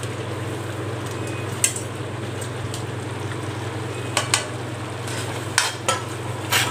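Fried mushroom and cabbage pieces being stirred into sizzling masala gravy in a metal kadai, over a steady low hum. A metal ladle knocks and scrapes against the pan a few times, mostly in the second half.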